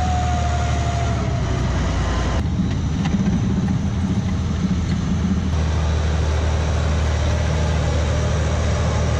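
Engine and tracks of a two-section articulated tracked carrier driving past at speed: a steady low engine drone with track clatter, and a high whine that falls in pitch in the first two seconds. The sound shifts abruptly about two and a half seconds in.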